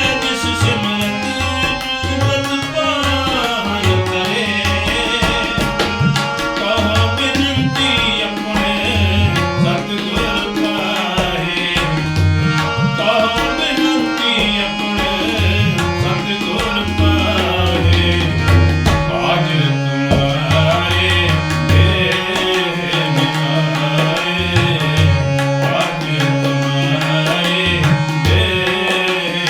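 Sikh kirtan music with tabla drumming under held, sustained melodic tones.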